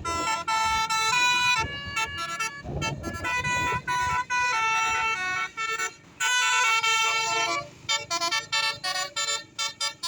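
Multi-tone 'basuri' telolet bus horn playing a rapid melody of short notes that step up and down in pitch, with a low rumble beneath at times.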